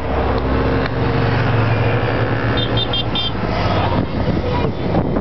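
A stream of motorcycles riding past close by, their engines running in a steady low drone. A quick run of four short high beeps comes about three seconds in.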